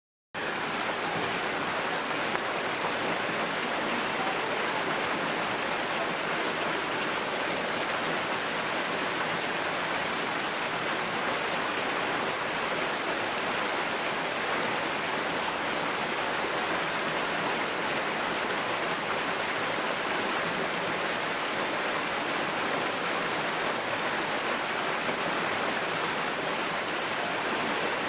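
Small waterfall pouring down rocks into a pool: a steady, even rush of falling water, beginning after a split second of silence.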